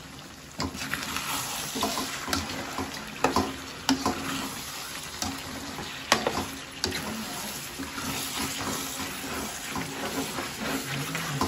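Metal spatula scraping and knocking against an aluminium kadai as chicken pieces are stirred through the masala, over the steady sizzle of the curry frying in oil. The knocks come at irregular intervals.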